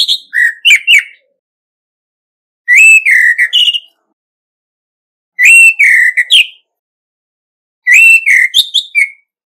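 Male orange-headed thrush singing its territorial contest song: four short phrases of rich, varied whistled notes, each about a second long, with pauses of about a second and a half between them.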